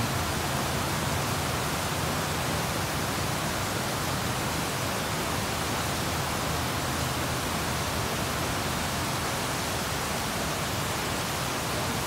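Heavy rain pouring down in a storm, a steady, even hiss with no let-up.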